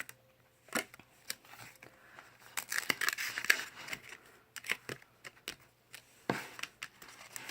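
Paper pages and card flaps of a lift-the-flap children's book being unfolded and turned: scattered short snaps and brief rustles of paper.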